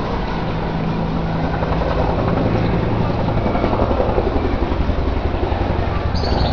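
Military helicopter flying over, its rotor beating rapidly over a steady engine drone, the beat growing stronger about halfway through.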